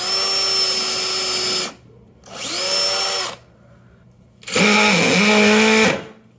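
DeWalt cordless drill running in four short bursts, drilling pilot holes and driving screws into a pine board. The motor whine is steady in each burst, with a brief drop in pitch as it loads up during the third burst.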